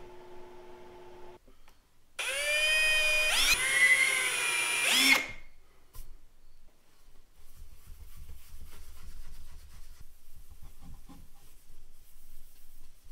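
Cordless drill running for about three seconds. Its motor pitch rises as it spins up, rises again partway through, then it stops. Afterwards a rag rubs faintly over the board.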